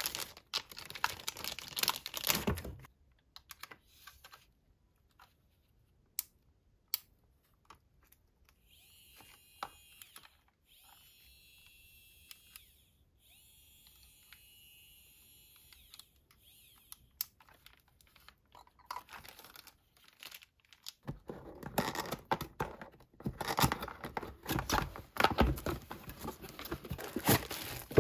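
Plastic packaging crinkling and clicks of handling, then a portable electric nail drill runs in three short spells with a faint high-pitched whine. Near the end, loud, dense crinkling of a plastic bag being pulled off.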